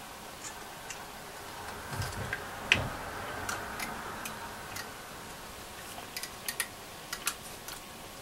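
Irregular light clicks and ticks of fingers handling a plastic dial-cord drum and its cord in an opened transistor radio chassis, with a louder knock about two and three-quarter seconds in.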